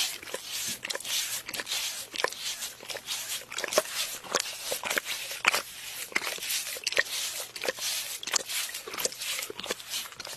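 Two golden retriever puppies licking the underside of a glass tabletop: a quick, irregular run of wet licks and tongue clicks against the glass, several a second.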